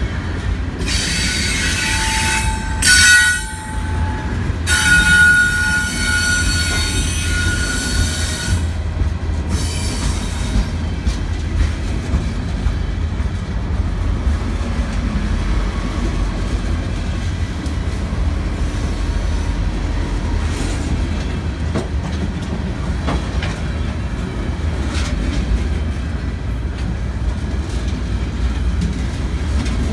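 Refrigerated boxcars of a freight train rolling past: a steady low rumble of steel wheels on rail, with a loud, high-pitched wheel squeal in two spells during the first eight seconds or so. After that the rumble goes on alone with occasional faint clicks.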